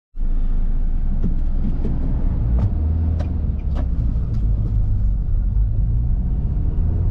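A car running, a steady low rumble with a handful of light clicks and taps over it in the first few seconds.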